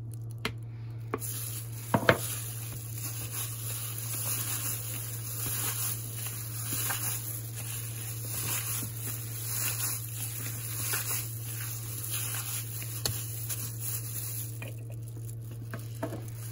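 A plastic-gloved hand kneading and mixing raw minced beef with breadcrumbs and onion in a plastic bowl, making a steady hiss with small irregular swells that stops shortly before the end. There is a sharp knock about two seconds in, and a low hum runs underneath.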